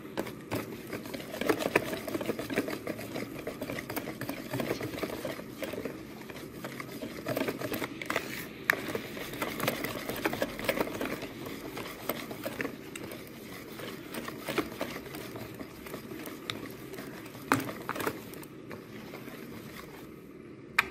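Wire balloon whisk beating cake batter by hand in a plastic bowl: a rapid, continuous run of clicks as the wires work through the batter and strike the bowl.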